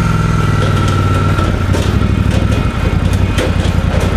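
Motorcycle engine running at low revs, steady for about a second and a half, then pulsing more unevenly.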